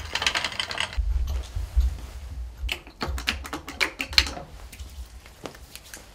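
Light clicks and rattles as a wheeled vital-signs monitor stand with a wire basket is moved, then a pump bottle of hand gel being pressed, with the sharpest click about four seconds in. Softer rubbing of hands follows near the end.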